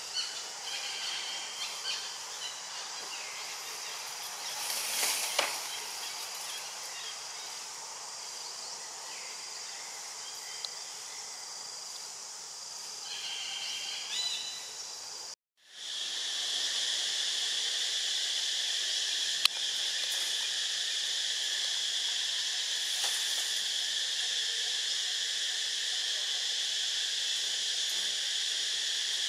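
Outdoor background with a faint hiss and a few brief high calls; after a sudden cut about halfway, a steady, high insect drone sets in and continues evenly, with one sharp click a few seconds later.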